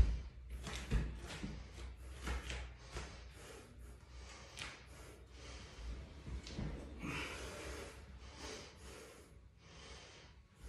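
A weightlifter's heavy, forceful breathing between and through barbell reps: rapid hard breaths in and out, about two a second, easing off near the end. A sharp knock right at the start is the loudest sound.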